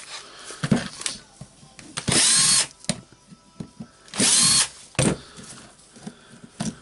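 Cordless drill-driver with a screwdriver bit backing out the housing screws of a Makita BDF456 drill: two short whirring bursts, about two and four seconds in, the motor spinning up and winding down each time. Between them, clicks and knocks of the tool and screws being handled.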